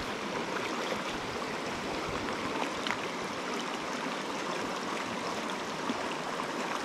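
Shallow trout stream running over a riffle and breaking around a fallen branch in the current: a steady rush of water.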